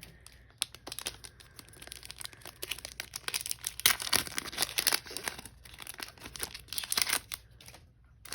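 Foil wrapper of a Pokémon booster pack crinkling and tearing as it is opened, in irregular crackles that die away near the end.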